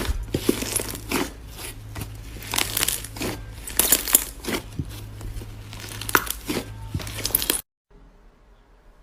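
Slime being squished and pressed by hand, giving irregular sticky crackles, pops and clicks. The sound cuts off abruptly about three-quarters of the way through, leaving only faint clicks.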